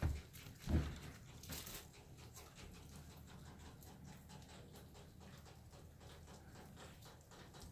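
Two dull thumps in the first second, footsteps on a wooden deck, then a short rustle and faint, irregular ticking.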